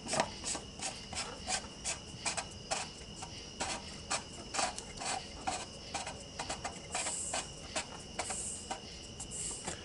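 Socket ratchet clicking in a long series of short, sharp clicks, first about two a second and then quicker and uneven, as the oil filter housing cap is turned back on.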